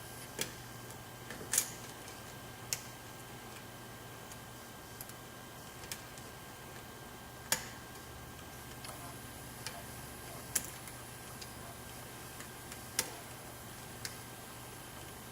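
Lock pick and tension wrench working the pins of a high-security euro profile cylinder with spool driver pins: scattered sharp clicks at irregular gaps of one to three seconds, over a steady low hum.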